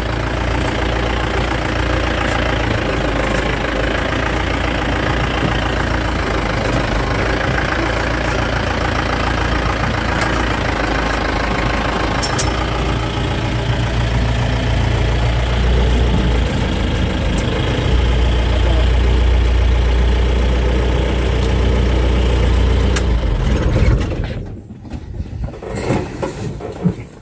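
Safari vehicle's engine idling steadily, a low hum that cuts off suddenly near the end.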